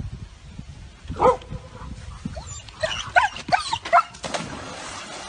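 A dog whining and yipping: one drawn-out call about a second in, then a quick run of short, high yelps a few seconds later.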